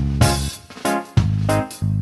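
Instrumental background music with a regular beat, chords and a steady bass line.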